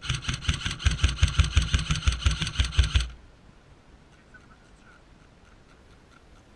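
Airsoft gun firing a rapid burst of shots, about three seconds of fast, evenly spaced cracks that stop suddenly.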